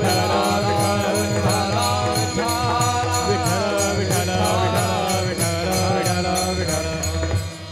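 Devotional kirtan chant sung into microphones, with hand-clapping keeping a brisk beat of about four strokes a second over steady held accompanying notes. It drops away about seven and a half seconds in.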